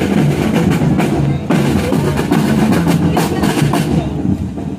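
A marching drum and lyre corps playing a parade march: snare, tenor and bass drums beating steadily, with bell lyres in the band.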